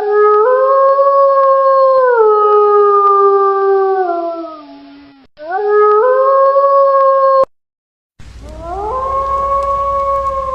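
Wolf howling: three long howls, each rising in pitch at the start, holding a steady note, then sliding down, separated by sudden cuts; the last one comes over a low steady hum.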